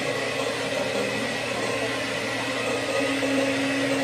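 Single-serve bullet-style blender motor running steadily with a whine, grinding a spinach smoothie a second time to break up the spinach left at the bottom. Its tone changes a little about three seconds in.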